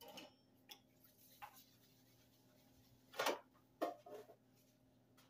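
Light knocks and clatter of a metal loaf pan being handled and lifted off a wooden countertop: a couple of small taps, then two louder knocks about three and four seconds in, the second with a brief metallic ring. A faint steady hum runs underneath.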